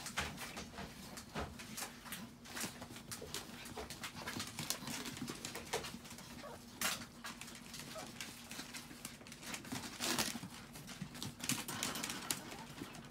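Chihuahuas moving about on a floor sheet and a plastic pet toilet tray: a steady run of short scratches, rustles and light clicks from their paws and claws, over a faint steady hum.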